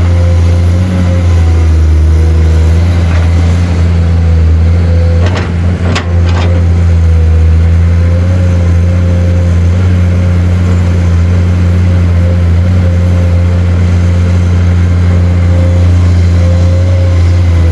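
Excavator's diesel engine running steadily at a constant speed, with a few sharp knocks about five to six seconds in.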